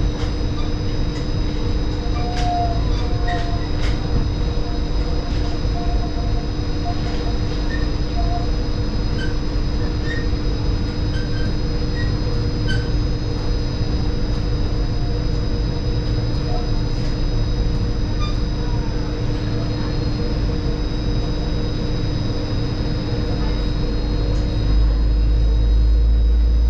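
Palm Jumeirah monorail running, heard from inside the car: a steady low rumble under constant whining tones, with a few faint clicks. Near the end the low rumble grows louder.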